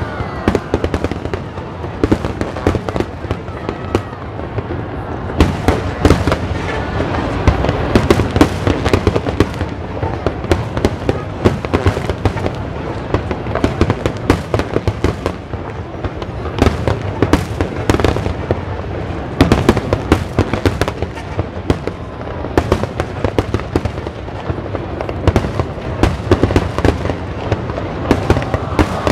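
Aerial fireworks display: many shells bursting in rapid, overlapping, irregular bangs and crackles, with no let-up.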